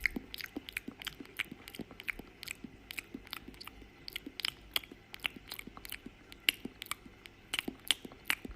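A pet chewing crunchy food: a run of small, crisp crunches, about three or four a second, irregularly spaced.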